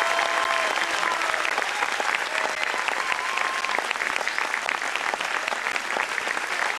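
Audience applauding steadily, a dense patter of clapping hands.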